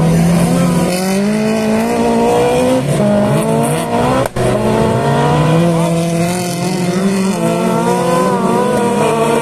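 Several Beetle-class autocross cars racing on a dirt track, their air-cooled VW Beetle engines revving and overlapping. The engine pitch rises and falls as the cars brake into and accelerate out of a bend.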